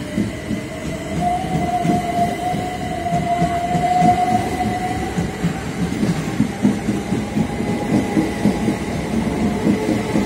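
Southern Class 377 Electrostar electric train pulling out along the platform. Its traction motor whine rises in pitch over the first few seconds, then holds steady over a regular clatter of wheels on the rail joints.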